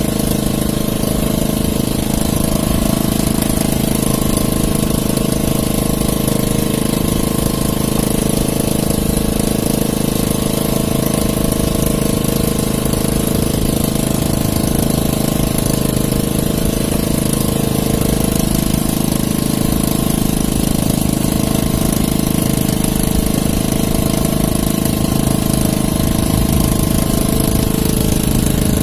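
Small engine running steadily and close by, with an even, unchanging note.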